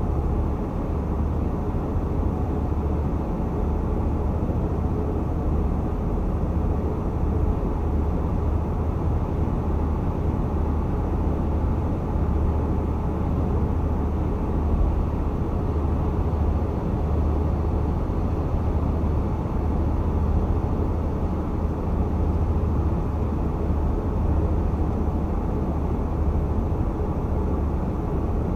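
Steady road noise of a car driving at highway speed: a constant low drone of tyres and engine with no changes.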